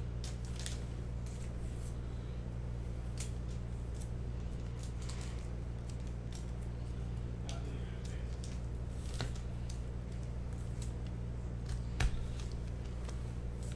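Trading-card foil packs and cards being handled at a desk: scattered faint crinkles and clicks, one sharper click near the end, over a steady low hum.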